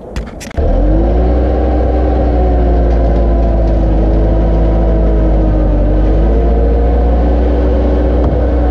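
Bobcat 864 compact track loader's diesel engine running steadily as it pushes soil into a trench, its pitch wavering slightly under load. It cuts in suddenly about half a second in, just after a few sharp clicks.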